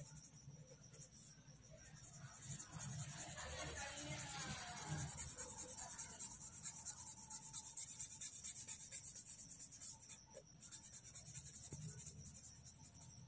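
Orange crayon rubbed on drawing paper in rapid back-and-forth strokes, shading in a coloured area.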